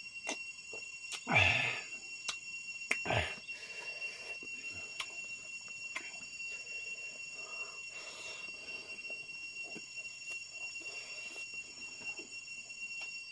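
Two loud slurps from a steel bowl, about a second and three seconds in, then quieter chewing and mouth sounds of eating by hand. A steady high tone runs underneath throughout.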